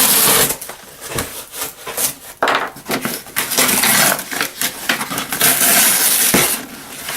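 Rigid packing being pulled and scraped out of a shipping box, with rustling and clattering knocks.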